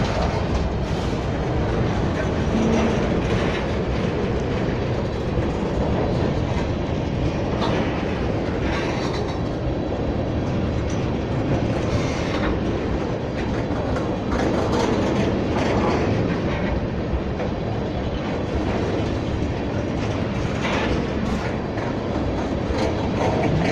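Empty oil tank cars of a freight train rolling past close by: a steady rumble of steel wheels on rail, broken by irregular clacks as the wheels pass over rail joints.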